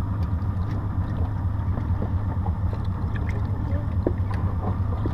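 Boat engine idling: a steady low rumble, with a few faint clicks near the end.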